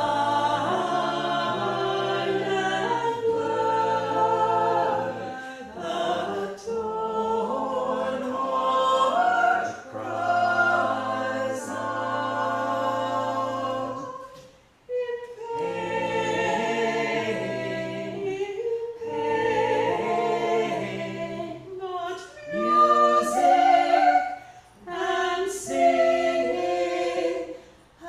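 Small mixed vocal group singing a cappella in sustained chordal harmony, with a short pause between phrases just past halfway.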